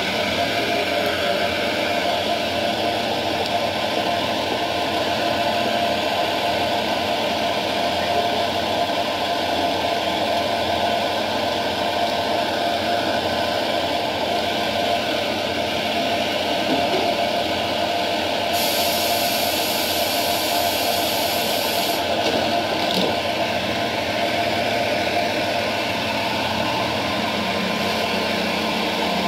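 Model Class 142 Pacer's sound decoder playing a diesel engine idling steadily through its small speaker, with a burst of hiss about eighteen seconds in that lasts some three seconds.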